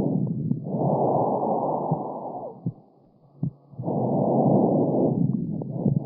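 Breath sounds recorded through a stethoscope on the chest: airflow noise swells for about two seconds, stops for about a second, then comes back with the next breath.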